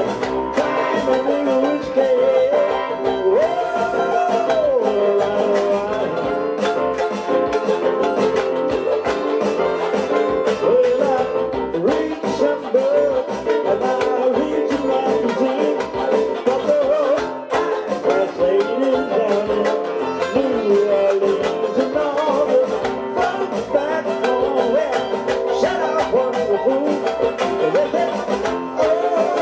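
Resonator banjo strummed briskly over electronic keyboard, with a man singing along into a microphone.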